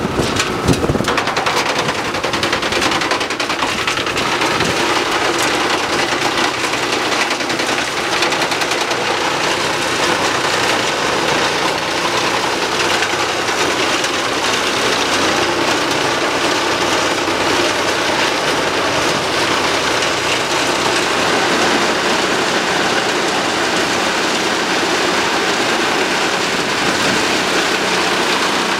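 HeizoHack wood chipper, powered from a New Holland T8.330 tractor, chewing through branches: a loud, dense stream of rapid cracking and splintering over the steady run of the tractor engine and chipper drum.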